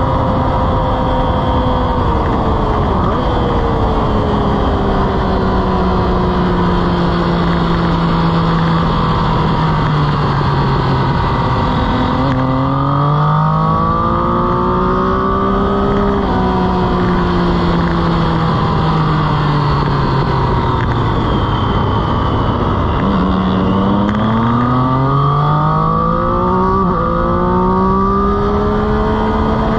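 Motorcycle engine heard onboard at track speed under heavy wind rush. The engine note sinks as the bike slows, then climbs again in quick steps through the gears, about halfway through and again near the end.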